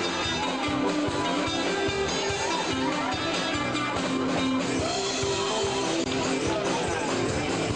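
Live dance band playing with electric guitar and drums, a steady beat throughout.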